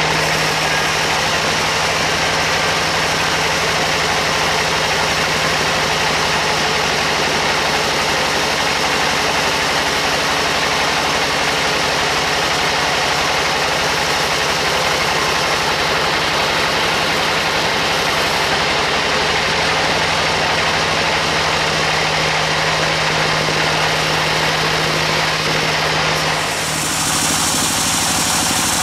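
Large band sawmill running and ripping a big timber lengthwise: a steady, loud mix of blade cutting noise and machine hum. The sound shifts abruptly about 26 seconds in.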